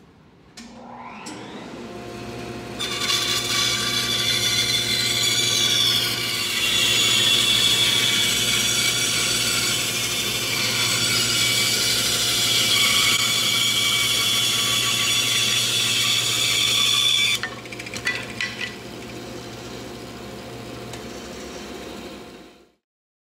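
Shop Fox bandsaw coming up to speed, then its blade ripping a thick wood blank along the fence: a loud, dense cutting noise from about 3 to 17 seconds in. After the cut the saw runs on unloaded, quieter, with a few clicks, and the sound cuts off suddenly near the end.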